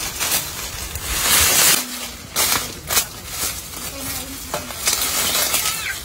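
Dry leaves and dry plant stalks rustling and crackling as they are pulled out and broken by hand, with several sharp snaps scattered through it.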